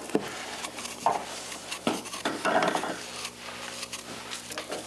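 Kitchen utensils being handled on a countertop: scattered light knocks and clinks of measuring spoons, cups and bowls being set down and moved, over a low steady electrical hum.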